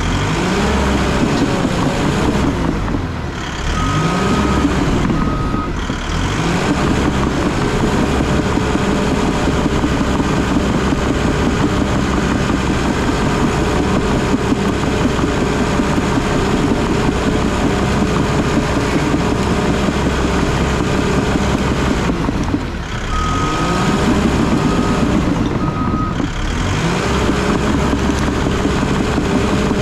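Crawler bulldozer's diesel engine running under steady load. Its pitch dips and climbs again twice as the machine changes direction, and a reverse alarm beeps a few times just after each change, about four seconds in and again near twenty-three seconds.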